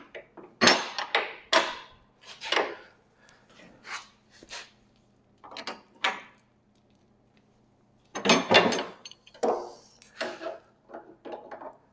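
Irregular metal clinks and knocks while the threaded height adjuster of a Frontier OS27 sawmill head is turned to raise one side, with a quicker cluster of clanks near the end. A faint steady hum runs underneath.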